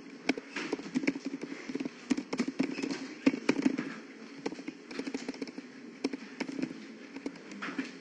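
Computer keyboard typing: a steady run of quick, irregular key clicks.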